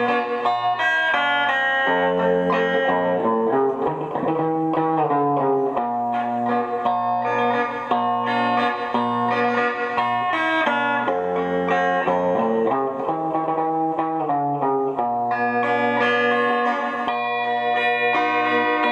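Solo guitar played fingerstyle: a steady stream of plucked notes, with a bass line shifting under a higher melody and many notes ringing together.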